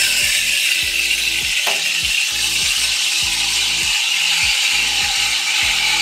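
Steam wand of an ACS Vesuvius Evo Leva dual-boiler espresso machine hissing steadily into a milk pitcher as milk is steamed and frothed.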